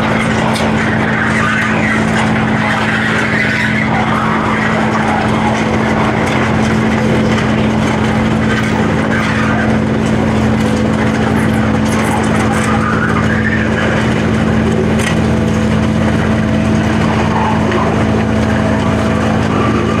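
A tractor engine running steadily at a constant speed, with no change in pitch.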